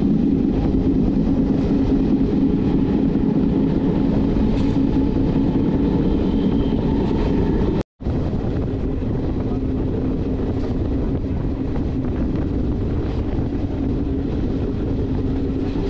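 Passenger train running along the track, heard from an open carriage door: a steady rumble of wheels on rail mixed with wind on the microphone and a steady droning hum. The sound cuts out for a split second about halfway through.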